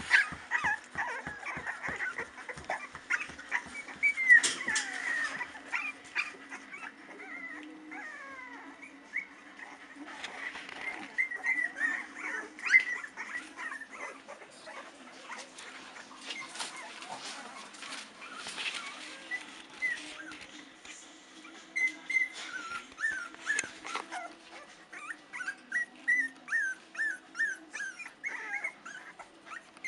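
Litter of 19-day-old Staffordshire Bull Terrier puppies whimpering and squeaking: many short, high-pitched calls, coming in quick runs near the end.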